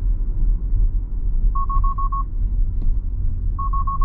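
A Tesla's in-car alert chime: two rounds of five quick, evenly spaced beeps on a single pitch, about two seconds apart, over the steady low road rumble in the moving car's cabin.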